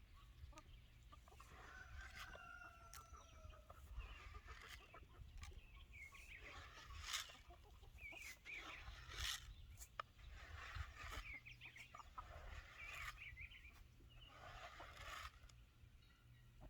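Faint clucking and calling from a flock of laying hens, short wavering calls repeating throughout, with scattered sharp clicks.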